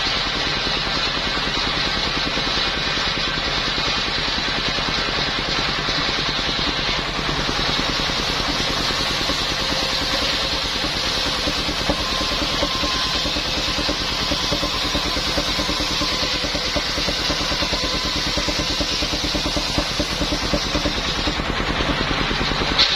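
Engine-driven circular saw machine (serkel) running steadily with an even, fast engine throb, working through waru wood.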